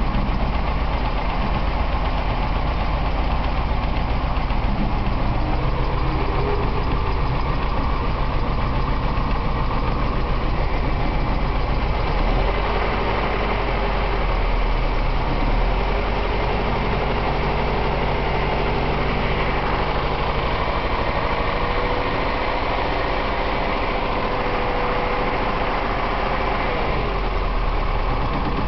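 BMW 318is M42 1.8-litre four-cylinder engine idling with a misfire after a Seafoam treatment, which the owner takes for the engine running lean.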